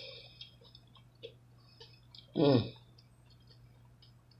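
Close-up chewing of a crunchy hard-shell taco: scattered small crisp mouth clicks and crunches. About two and a half seconds in, a short vocal sound that falls in pitch.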